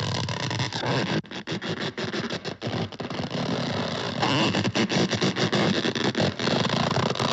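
Cartoon sound effect of a loud, harsh, rasping snore from the sleeping elephant. It runs on without a break and flutters rapidly.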